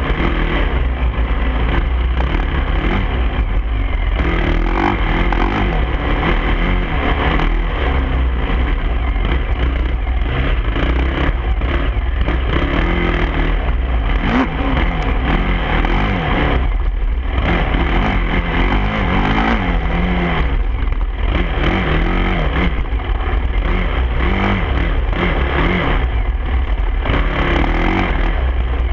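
Dirt bike engine running hard and revving up and down while riding a rough trail, over a heavy low rumble of wind on the microphone.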